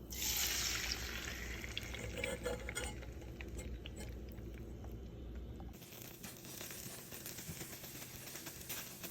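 Food sizzling in a hot frying pan, starting with a sudden burst of sizzle that settles into steady crackling, with small clicks of utensils against the pan.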